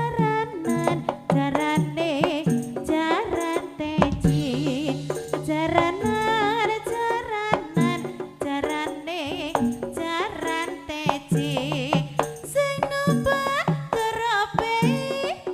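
Live jaranan music: hand drums beating quick strokes under a wavering, heavily ornamented melody line, with steady low tones beneath.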